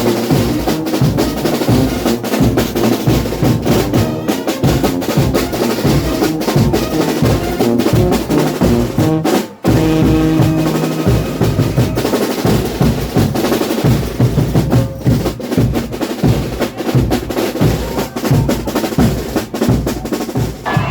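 Frevo band playing loud, fast percussion, with snare drum rolls and bass drum strokes under brass notes. The music breaks off for an instant about nine and a half seconds in, then carries on.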